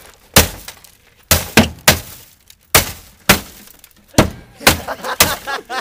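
Repeated hard blows on a wrecked car: about ten strikes in quick, uneven succession, with glass breaking.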